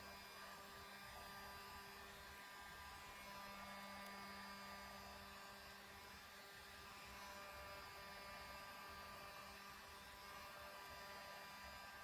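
Near silence with a faint, steady electrical hum.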